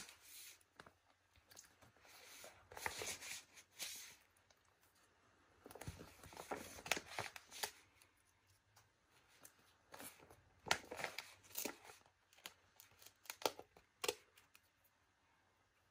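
Stickers being peeled off a backing sheet and pressed onto a glossy paper magazine page: faint, irregular paper rustles and crackles in clusters a few seconds apart, dying away near the end.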